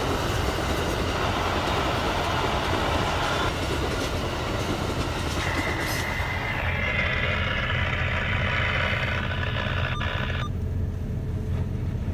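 Amtrak passenger train coaches rolling past on the rails with a steady rumble. A high ringing tone joins about halfway through and cuts off suddenly near the end.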